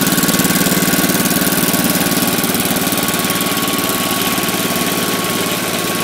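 One-cylinder Wisconsin engine of a Sears and Roebuck 5,000-watt Powerhouse generator running steadily at a fast, even beat through a new muffler, the generator charging.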